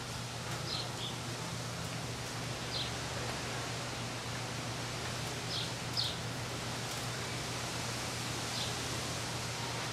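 Steady background hiss with a low hum underneath, and a few faint, very short high chirps scattered through it; no clear work or machine sound stands out.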